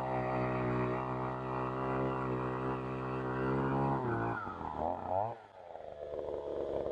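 Takyo TK-2P earth auger's 52 cc single-cylinder two-stroke engine running steadily under load as the 15 cm bit bores into hard soil. About four seconds in, the engine pitch dips and swings up and down as the auger is pulled out of the hole, then settles lower.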